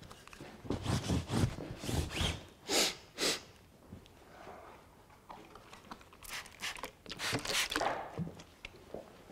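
Hand-pump spray bottle squirting in quick runs of short sprays, one run in the first few seconds and another about six seconds in, with quiet handling in between.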